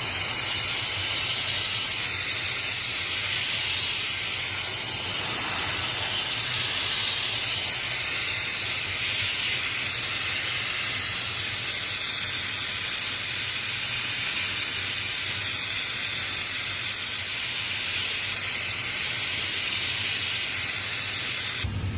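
Pressure washer spraying water onto a car's floor, a loud steady hiss that cuts off suddenly near the end.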